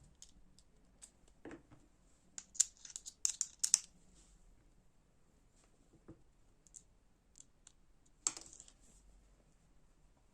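Small sharp clicks and taps of a folding knife's metal parts and small tools being handled. A quick run of them comes a few seconds in, and one louder click follows near the end.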